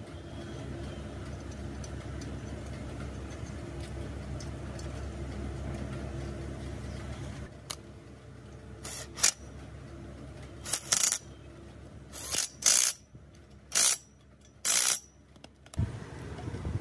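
Impact wrench tightening the fan pulley bolts on a Shibaura fire pump engine's cooling-fan flywheel, in about seven or eight short, sharp bursts through the second half. A low steady hum comes before them.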